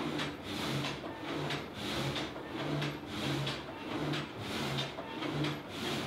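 Wind-driven multi-blade frame saw working: the wooden saw gate runs up and down, its blades rasping through the log with a steady beat of about two strokes a second.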